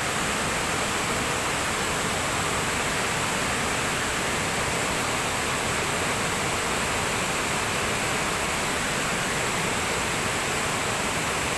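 Steady rush of a waterfall: an even, unbroken roar of falling water.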